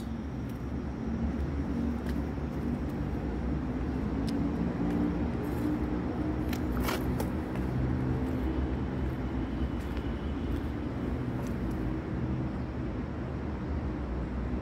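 Steady low mechanical rumble with a faint hum, broken by a few light knocks, the sharpest about seven seconds in.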